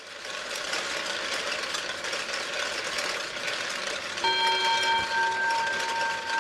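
A steady rattling noise, then about four seconds in a metal bell-like tone starts ringing. Its highest overtones fade within a second, while its main tone holds on with a slight waver.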